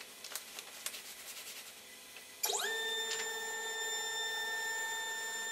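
Ultimaker 2 3D printer's Z-axis stepper motor lowering the build plate: a whine that starts about two and a half seconds in, sweeps up in pitch as the motor speeds up, then holds one steady pitch. A few faint clicks come before it.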